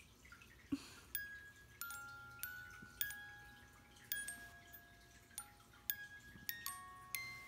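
Bare wind-up music box movement plinking a slow melody, single ringing notes about two a second. A small knock just under a second in comes as the tune picks up.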